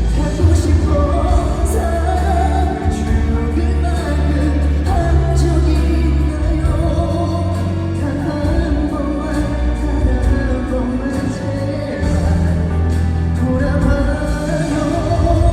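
A male singer sings a pop ballad live over a full band accompaniment with heavy bass, played through an arena sound system.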